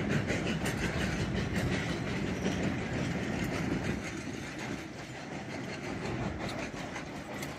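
Cumbres & Toltec narrow-gauge passenger cars rolling past at close range, their wheels clicking over the rail joints over a steady rumble that eases a little about halfway through.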